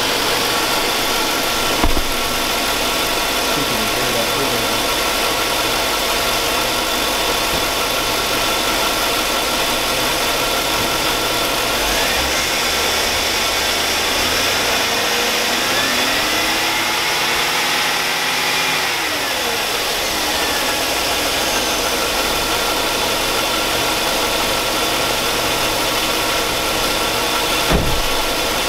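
2002 Chevrolet Avalanche's 5.3L Vortec V8 idling steadily with a knocking noise, which the owner takes for rod knock and noisy lifters. A faint rising and falling whine comes and goes in the middle.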